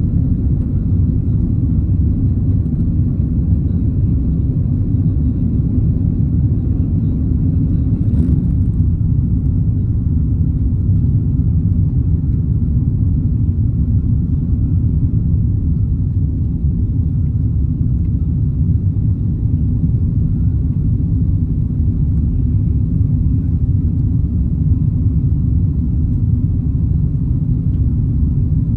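Airliner cabin noise during takeoff: a steady low rumble of the jet engines and rushing air, heard from inside the cabin. There is one brief click about eight seconds in.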